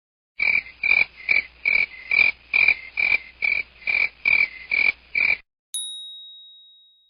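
A short rasping pulse repeated about a dozen times, evenly spaced at roughly two and a half a second, as a comedy sound effect. Near the end comes a single bright ding that rings out and fades.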